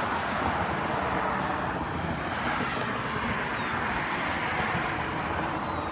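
Steady outdoor background roar with no distinct events, with a few faint, short, high chirps over it.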